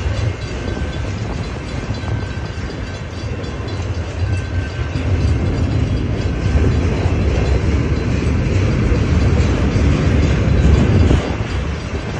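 Enclosed autorack freight cars rolling past, a steady low rumble of wheels on rail joints with some clickety-clack. It grows louder after a few seconds and drops back suddenly near the end.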